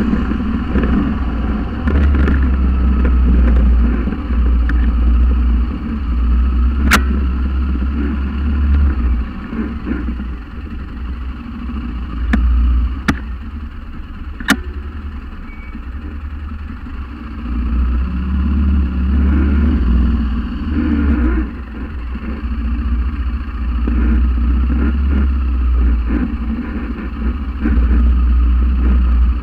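Quad bike (ATV) engine running close to the microphone as the machine rolls over a rough field track, its rumble rising and falling, quieter for a while midway. Three sharp knocks or clicks come through in the first half.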